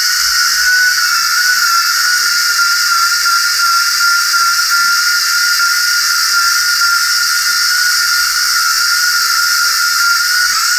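Handheld electric power tool running continuously at high speed: a steady high-pitched motor whine with a strong hiss above it, the pitch wavering briefly near the end.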